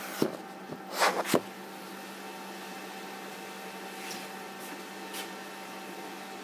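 Handling noise from the camera being touched and adjusted: a few knocks and rustles in the first second and a half. Then a steady electrical hum with several thin whining tones.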